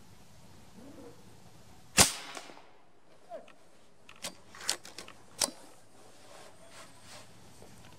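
A Reximex Throne PCP air rifle in 5.5 mm (.22) fires one sharp shot about two seconds in, sending a 31-grain Beta Solid pellet downrange. A few seconds later comes a quick run of small metallic clicks as the rifle is cycled to load the next pellet.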